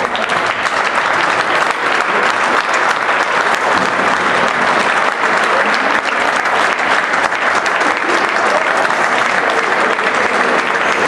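Applause: many hands clapping steadily together.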